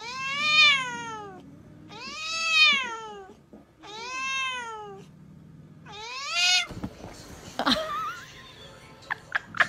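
Domestic tabby cats in a face-off, one giving four long drawn-out meows about two seconds apart, each rising then falling in pitch. After the fourth call there are only faint scattered clicks and softer sounds.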